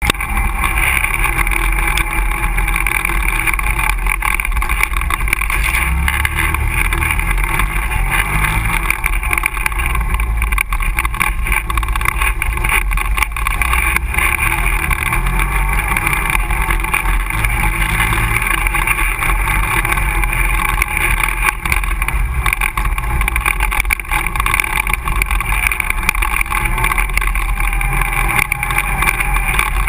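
ATV engine running steadily under riding, heard from a camera mounted on the quad, with wind and trail noise over the microphone. The engine note shifts up and down with the throttle.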